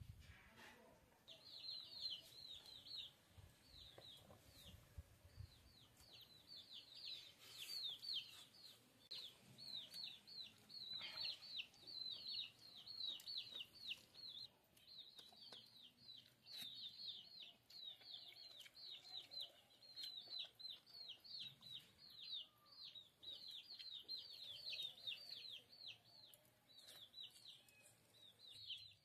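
Birds chirping faintly: a steady stream of short, high, falling chirps, several a second, starting about a second in.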